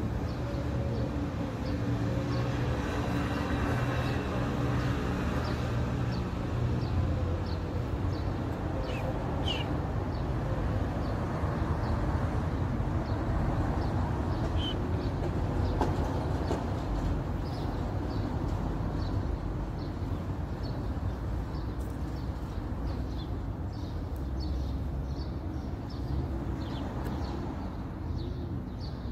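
Outdoor background ambience: a steady low rumble with faint, scattered high bird chirps.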